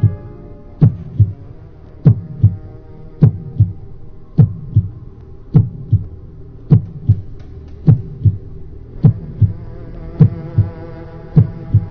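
Heartbeat sound effect: slow paired lub-dub thumps, about fifty a minute, over a sustained musical drone.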